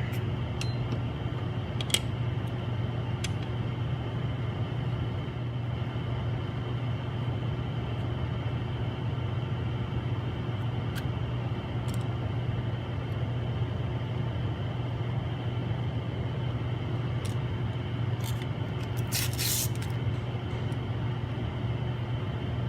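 Steady low machine hum at the repair bench, with a few light clicks of handling, one sharp click about two seconds in, and a brief scratchy rustle near the end.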